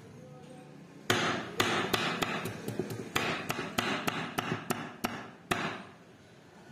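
A long knife made from an old saw blade chopping vegetables on a wooden board: a run of about sixteen sharp knocks, roughly four a second, starting about a second in and stopping shortly before the end.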